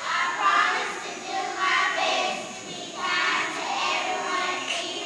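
A group of young children reciting a pledge together in unison, in short chanted phrases with brief pauses between them, echoing in a large hall.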